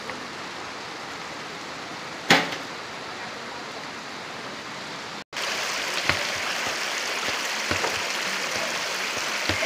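A steady rushing noise with one sharp knock about two seconds in. After a sudden cut about halfway, the rushing is louder and brighter, and loose stones clack now and then as they are handled.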